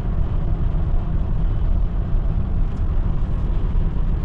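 Steady road and engine noise of a car travelling at speed, heard from inside the cabin: a constant low rumble with a faint hiss above it.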